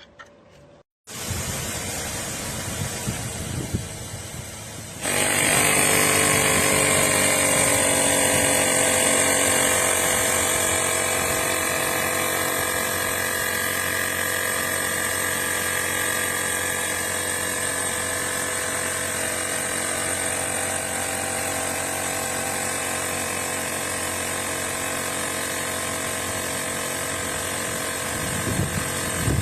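Blestan cordless tire inflator's compressor switching on and running steadily, with a high whine and a buzzing drone. It gets clearly louder about four seconds after starting, then holds steady.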